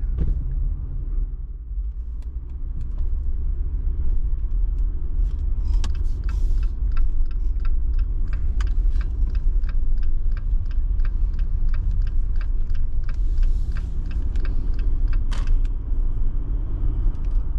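Vehicle road noise heard from inside the cab: a steady low rumble, with a run of light rapid ticks and rattles from about five seconds in until near the end.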